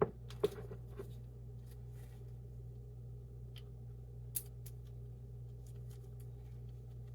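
Scattered clicks and taps from hands working at a salad dressing bottle, trying to get it open. Several sharp clicks come in the first second, then a few more about 3.5 and 4.5 seconds in, over a steady low hum.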